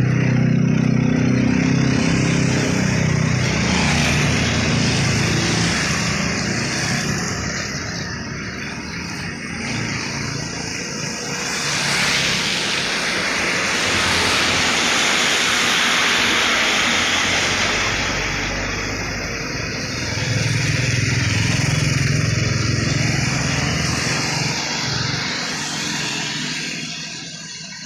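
Road traffic going past on a wet road: truck engines running as they pass, near the start and again later, with a long hiss of tyres on wet asphalt midway through, and motorcycles among them.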